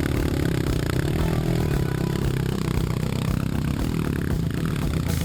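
Dirt bike engine running under load on a steep trail climb, mixed with the rattle and knock of the bike over rough ground.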